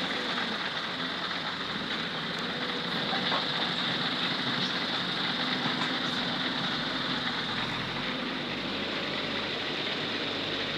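A heavy vehicle's diesel engine idling steadily under a constant hiss.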